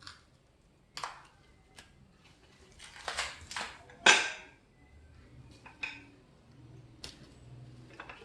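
Metal parts of a pull-up bar being handled, knocking and clinking against each other, with scattered clicks, a short rustling stretch and one loud sharp clank about four seconds in.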